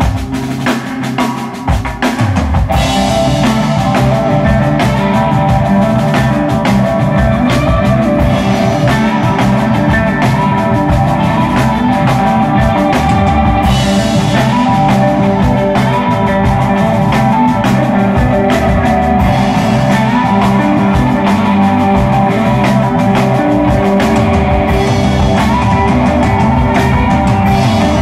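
Instrumental rock band playing live: drum kit, bass guitar and two electric guitars. The full band comes in louder about two seconds in after a sparser drum-led start.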